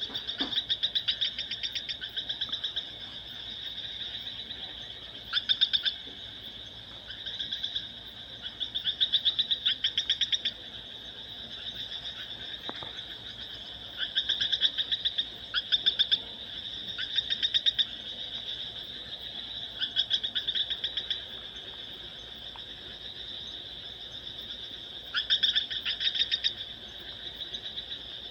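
Animal trills: bouts of rapid, evenly pulsed high-pitched calls, each lasting about a second and recurring every couple of seconds, over a steady high-pitched chorus.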